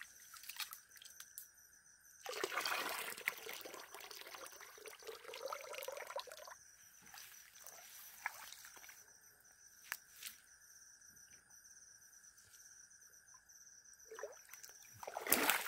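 Rice being washed by hand in a metal pot: water sloshing, trickling and being poured off, loudest for a few seconds starting about two seconds in.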